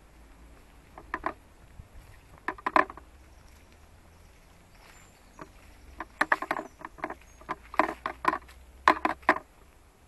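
Footsteps on dry leaf litter and twigs on a woodland path: short crackles in irregular clusters, a few early on and thicker from about six seconds in.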